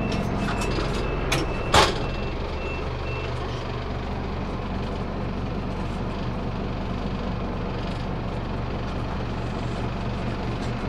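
Scania DC9 diesel engine of a Scania CN270UB city bus running at idle, heard from inside the bus. A short sharp hiss of compressed air about two seconds in, and a high intermittent beeping over the first three seconds.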